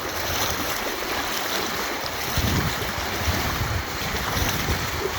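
Virgin River water rushing and splashing as someone wades through it, a steady hiss of moving water, with low rumbles of wind on the microphone a couple of seconds in.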